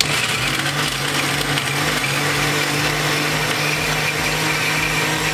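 Countertop blender with a glass jug switched on and running steadily at full speed, its motor puréeing chilled strawberries with strawberry yogurt.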